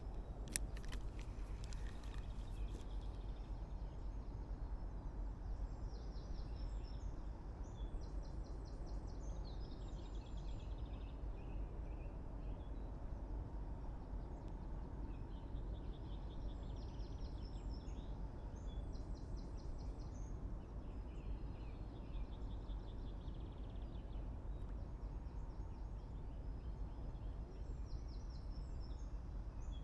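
Small birds singing in short repeated phrases over a steady low outdoor rumble, with a few quick clicks in the first couple of seconds.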